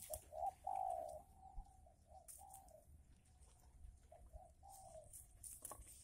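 Spotted dove cooing in two phrases of low coo notes, the first running through the opening three seconds and the second about four seconds in, with a short sharp click near the end.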